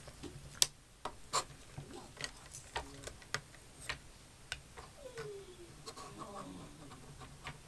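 Clockwork spring motor of a wind-up toy helicopter being wound by hand, giving irregular sharp ratchet clicks, roughly one or two a second.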